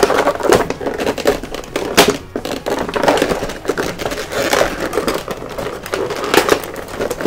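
Clear plastic blister packaging crackling and crinkling as a large action figure is worked loose from it, with irregular sharp snaps throughout.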